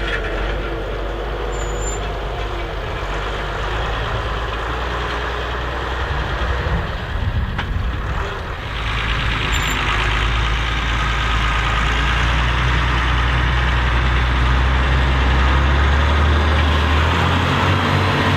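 Massey Ferguson 135 tractor engine running steadily while pulling a four-furrow plough, getting louder about halfway through.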